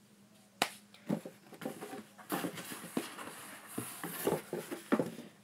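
Handling noise: rustling with irregular sharp clicks and light knocks as items from a slime package are moved about by hand.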